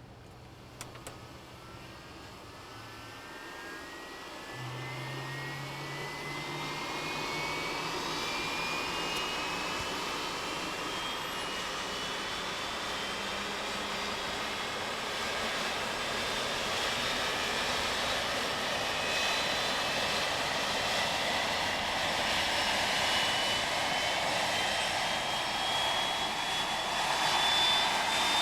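Boeing 767's right turbofan engine starting: a whine that rises steadily in pitch and grows louder as the engine spools up.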